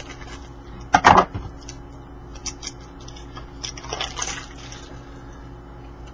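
Hockey card pack being opened by hand: a sharp wrapper rip about a second in, then rustling and crinkling of the wrapper and cards around four seconds in, with light clicks of cards being handled.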